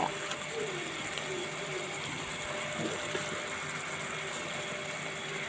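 Cabbage and fish-head khar simmering in an iron kadai over a gas flame, a steady, even hiss with no clear beat.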